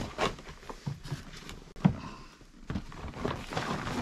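Handling noises: rustling and light clicks, with one sharp knock a little under two seconds in.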